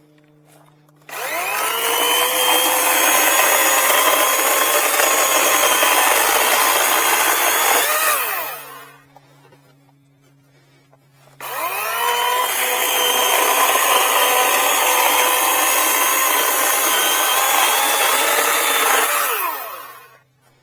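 Greenworks 80-volt battery chainsaw fitted with a carbide chain, cutting through wood in two passes: each time the motor whines up to speed, runs under load for about seven seconds, then winds down, with a pause of about three seconds between the cuts.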